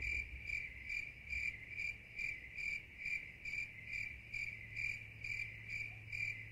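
A high chirp repeating evenly about three times a second, over a low steady hum.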